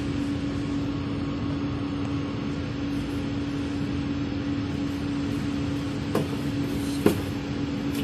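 Steady hum of commercial kitchen fans, the exhaust hood and conveyor pizza oven blowers, with one constant low tone running through it. Two short knocks come near the end, the second the louder.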